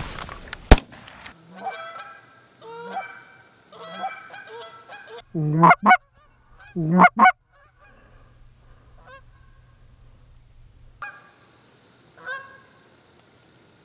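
Canada geese honking in a series of calls, loudest as two double honks about five and a half and seven seconds in. A sharp shotgun blast, the loudest sound, comes about a second in.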